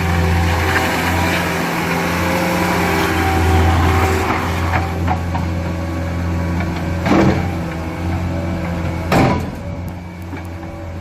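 Caterpillar 236D skid steer loader's diesel engine running steadily, with two sharp clunks, one about seven seconds in and one about nine seconds in. The engine sound becomes quieter after the second clunk.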